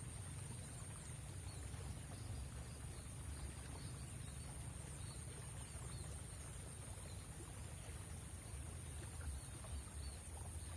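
Steady riverside outdoor ambience: a low, even rumble from the river and air, a constant high-pitched whine, and faint scattered chirps.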